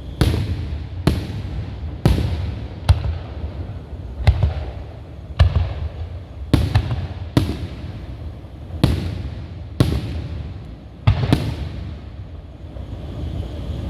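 Fireworks shells bursting overhead in a rapid series of about eleven loud bangs, roughly one a second, each followed by a low rumbling echo; the barrage stops near the end.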